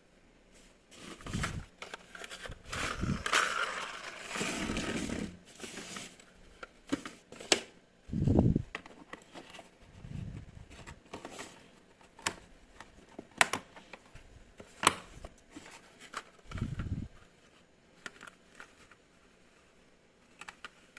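Handling noises at close range: scattered sharp clicks, scrapes and rustling, with a few dull thumps about eight, ten and seventeen seconds in.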